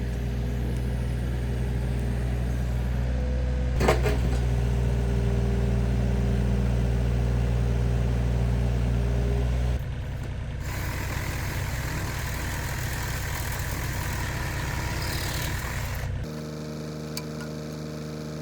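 John Deere 35D mini excavator's diesel engine running steadily, with a single sharp knock about four seconds in. The engine note changes abruptly twice, about ten and sixteen seconds in.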